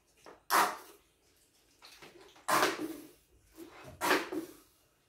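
Three short clatters of tableware, plates and cutlery knocking and scraping on a dining table, spaced about two seconds apart.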